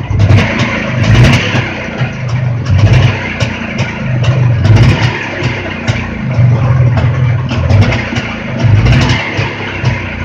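Jawa motorcycle's two-stroke engine running and being revved up and down, swelling and falling about once a second. It runs without knocking.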